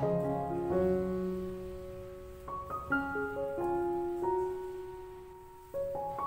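Background piano music: struck notes and chords ring and fade. The music dips briefly near the end, then a new phrase begins.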